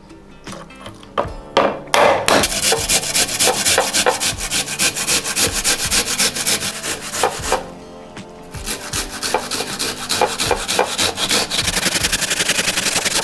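Food rubbed fast and repeatedly against a stainless-steel hand grater, a dense run of scraping strokes with a short pause about two-thirds through. A few sharp knocks of walnut shells on a wooden board come first.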